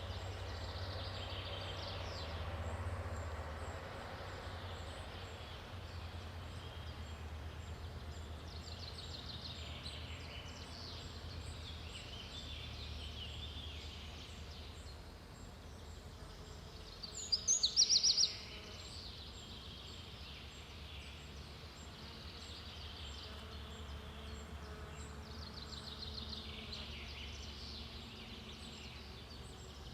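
Daytime forest ambience: several birds singing in scattered phrases over a steady low background rumble, with a faint, even high chirping throughout. A little past halfway one bird gives a loud, quick burst of rapid notes, the loudest sound here.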